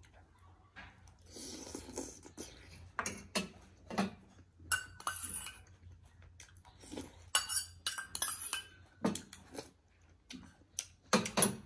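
A stainless-steel spoon clinking and scraping against a small steel bowl as the last pork momo and its sauce are scooped out and eaten, with eating sounds in between. The clinks come irregularly, with a loud cluster near the end.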